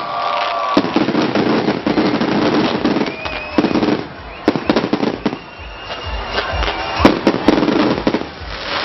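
Fireworks display: a rapid, dense string of bangs and crackling from aerial shells, with a short whistle about three seconds in and the loudest bangs about seven seconds in.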